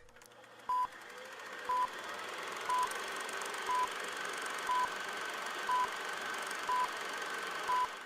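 A short, high electronic beep repeating once a second, eight times, over a steady hiss.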